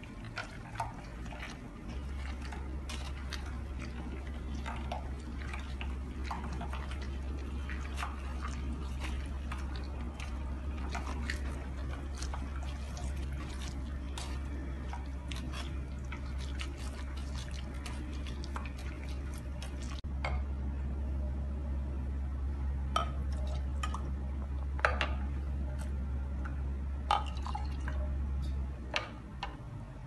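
Pomegranate arils being mashed through a mesh sieve with the bottom of a glass: wet squishing and juice dripping, with many small clicks and crackles. A low steady hum runs underneath, starting about two seconds in and stopping shortly before the end.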